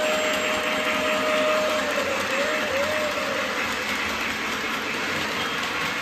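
Lionel model steam locomotive's whistle: one long blast that ends about two seconds in, then two short blasts, over the steady running noise of model trains on the track.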